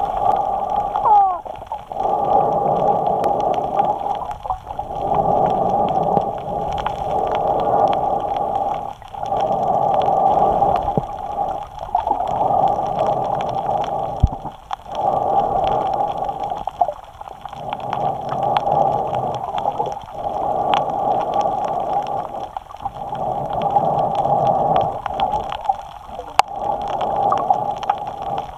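A snorkeler breathing in and out through the snorkel, picked up close by a camera mounted on the snorkel. The breaths are a steady rushing noise that pauses briefly every three to four seconds.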